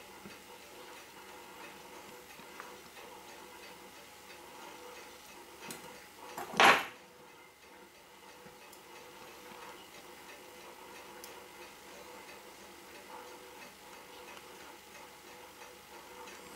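Seiko 6217 automatic watch movement ticking faintly and steadily. About six and a half seconds in comes one brief loud knock, with a smaller click a second before it.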